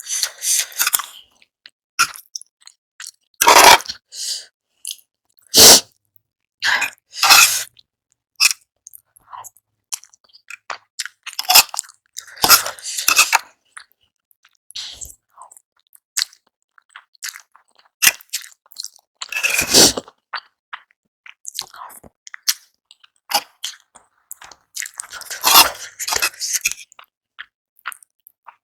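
Close-miked eating sounds of a person eating hot and spicy Korean instant noodles with boiled eggs: chewing and short mouth noises in irregular bursts, separated by brief pauses.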